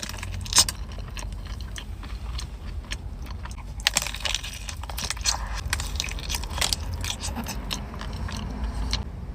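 Close-miked eating: biting into and chewing a dessert, with many small crunchy, crackling clicks, busiest in the middle.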